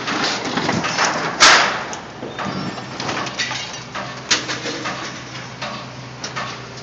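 Caterpillar excavator's diesel engine running steadily as its bucket grips and lifts a crushed car body, the sheet metal crunching, scraping and clanking. A single loud metal bang comes about a second and a half in.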